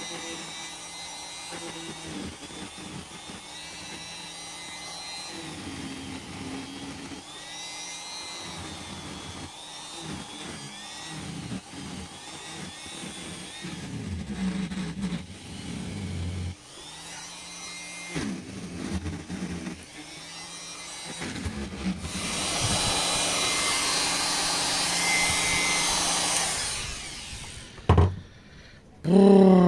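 Electric straight grinder from Lidl running with a burr that carves olive wood: a high whine that dips and recovers in pitch as the burr bites. Near the end comes a louder, harsher grinding stretch, then a knock.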